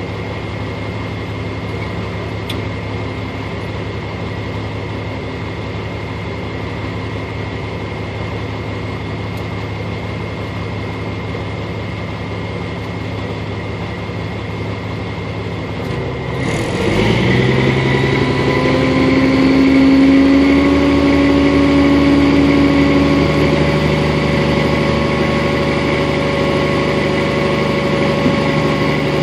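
A vehicle's engine idling steadily, heard from inside the cab. About sixteen seconds in the sound dips briefly, then its pitch climbs and settles at a higher, louder steady speed.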